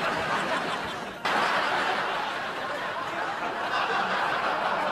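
Studio audience laughing, a sitcom laugh track that swells suddenly louder about a second in and keeps going.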